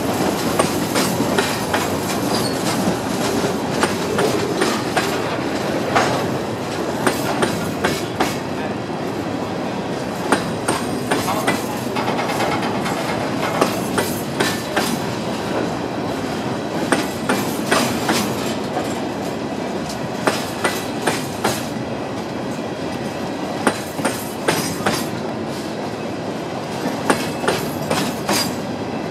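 Empty Herzog freight cars of a passing freight train rolling by: wheels clicking over rail joints in frequent, irregular sharp clicks over a steady rolling rumble.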